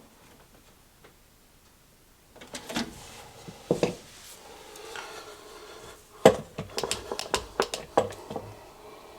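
Irregular sharp clicks and clatter of hands handling metal parts and wiring in a tight space, with a cluster of knocks a little past the middle.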